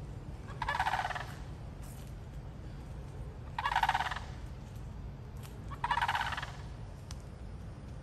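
Florida sandhill cranes calling: three rolling, rattling calls, each about half a second long, spaced two to three seconds apart.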